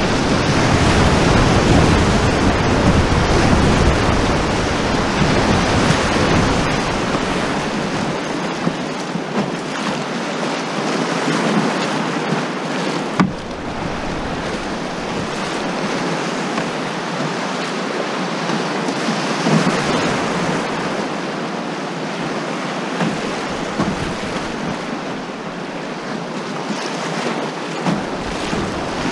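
Whitewater rapids rushing steadily around an open canoe, with wind buffeting the microphone, heaviest in the first several seconds. One sharp knock about halfway through.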